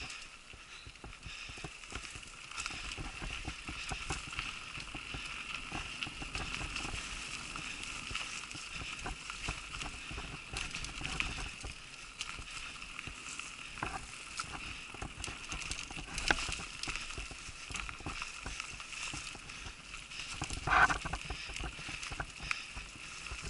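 Mountain bike rolling down a dirt forest singletrack: tyre noise on earth and leaves with frequent small knocks and rattles from the bike over bumps, under a steady high buzz. A short, louder pitched sound comes about 21 seconds in.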